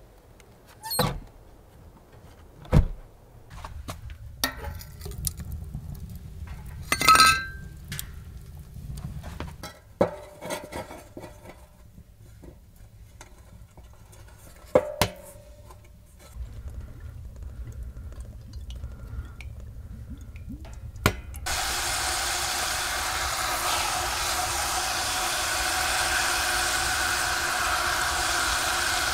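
Scattered knocks and clinks of wood and metal as firewood is handled at a small steel wood stove. About three-quarters of the way through, meat starts frying in hot fat in a metal pot: a loud, steady sizzle that takes over.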